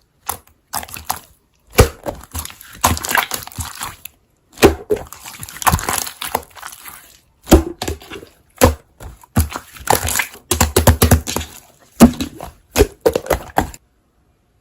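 Slime being squeezed and pressed by hand, making irregular runs of crackling pops and clicks that stop shortly before the end.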